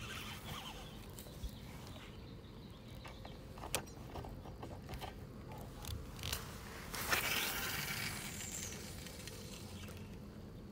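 Spinning reel being cranked to wind in line, with light mechanical clicks, then a cast about seven seconds in that makes a brief rushing swish.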